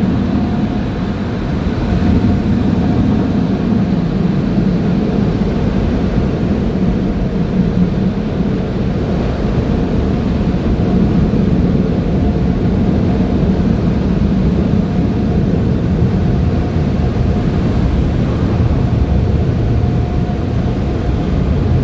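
Steady low rumble of a car being driven, heard from inside the cabin, with a faint steady hum above it.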